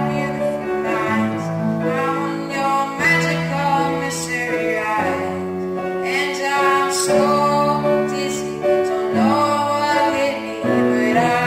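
A boy singing while accompanying himself on a grand piano. Held piano chords change about every two seconds under his voice.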